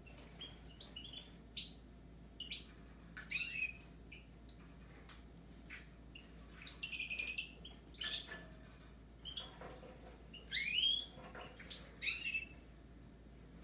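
Caged goldfinches and canaries calling and twittering: a run of short chirps and sweeping calls. A brief buzzy trill comes near the middle, and a few loud rising calls stand out, the loudest about eleven seconds in.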